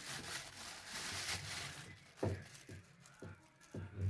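Rustling and handling noise from a sheet of asphalt sound-deadening mat being picked up and shown, followed by a few soft knocks in the second half.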